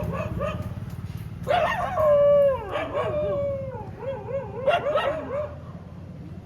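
Street dogs howling and yelping: one long howl about a second and a half in that slides down in pitch, then wavering yelps and a few sharp barks near the five-second mark.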